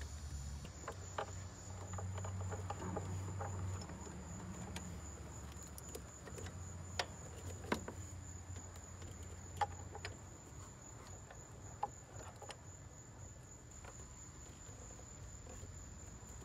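A few scattered light metallic clicks and taps of a hand tool tightening the bolt on a power steering pump, with low handling rumble and a steady high-pitched whine throughout.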